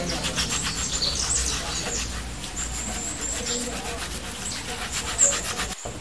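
Steel-wool scrubber rubbed quickly back and forth over a washing machine tub's plastic mesh filter under running water: a fast scratchy scrubbing that cuts off abruptly near the end.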